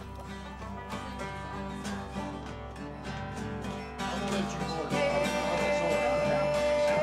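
Bluegrass-style soundtrack music with plucked acoustic guitar. It grows louder about four seconds in, and a long held note comes in about a second later.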